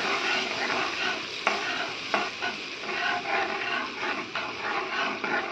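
A steel spoon stirring and scraping through thin kadhi batter in a metal kadhai on a gas flame, with a few light clicks of spoon on pan. The kadhi is stirred continuously to keep it from curdling before it comes to the boil.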